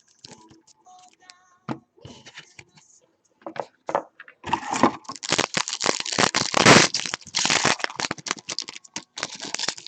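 Trading card pack wrapper being handled, then torn open and crumpled: scattered light crackles, followed by a long stretch of loud, dense crinkling from about halfway in until just before the end.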